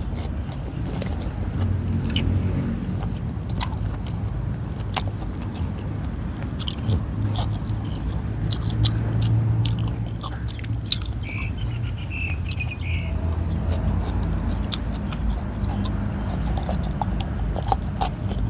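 Close-up biting and chewing of boiled bamboo shoots, with many small crisp clicks and crunches, over a steady low rumble.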